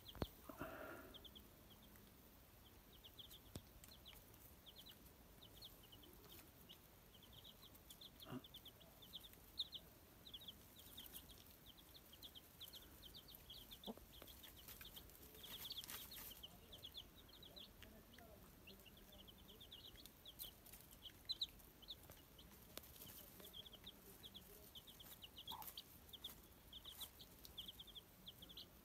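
Six-day-old chicks peeping: a faint, continuous stream of short high cheeps, several a second.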